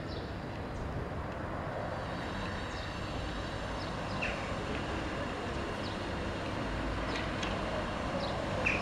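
Steady background street traffic noise, with a few brief, faint high chirps scattered through it.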